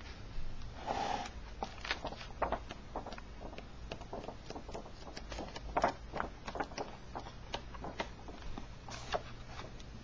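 Paper pages of an old hardcover book being turned by hand: a swish about a second in, then many light rustles, taps and clicks of paper, over a faint steady low hum.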